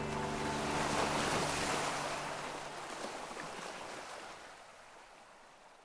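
Ocean surf washing: a wave of hiss swells about a second in, then fades away.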